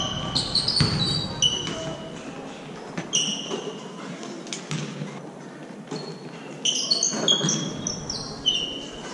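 Basketball sneakers squeaking on a hardwood gym floor: short, sharp high squeaks in clusters near the start, about three seconds in, and again through the second half. Between them come scattered thuds of a bouncing basketball and footfalls, echoing in the large gym.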